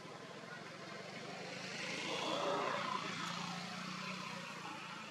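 A motor vehicle passing by, growing louder to a peak about two and a half seconds in, then fading away.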